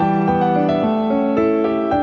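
Background music: a gentle piano or keyboard piece with a melody over held low notes, the notes changing every fraction of a second.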